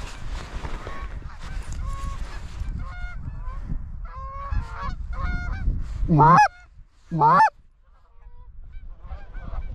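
Canada geese honking as a flock comes in, faint at first over a low wind rumble on the microphone. Two much louder, close honks rising in pitch follow, about six and seven seconds in, then fainter honks again near the end.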